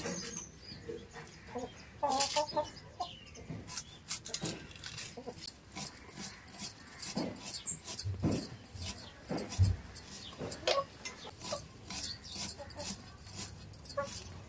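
Small red onions being peeled and trimmed by hand against a floor-mounted curved blade: a run of short irregular clicks and crackles from the dry skins and the blade. Over it come a few short animal calls and some low thuds.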